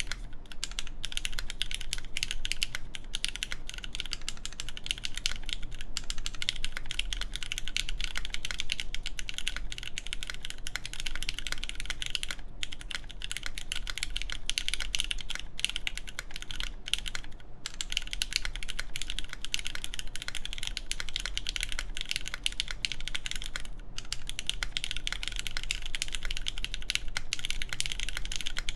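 Continuous fast typing on a mechanical keyboard with lubed Cherry MX Black linear switches, GMK Carbon keycaps and a full aluminium plate, with a few brief pauses between bursts.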